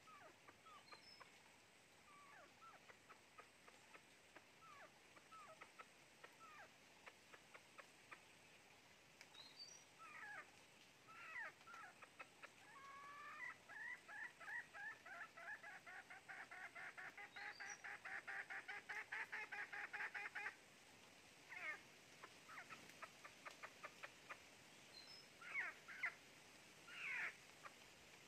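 Red junglefowl clucking: scattered single clucks, then a rapid, unbroken run of clucks from about the middle for some seven seconds, then a few louder separate calls near the end.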